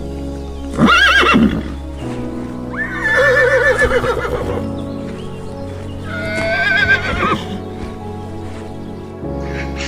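Horse whinnying three times, high quavering neighs with a shaky, wavering pitch, over steady background music.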